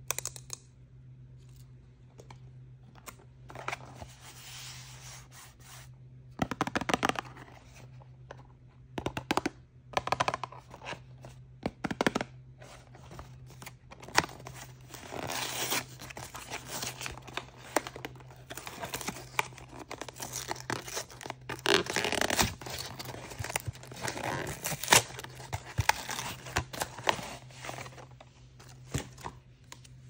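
Hands tearing open and crinkling toy packaging, in irregular bursts of rustling with several sharp rips.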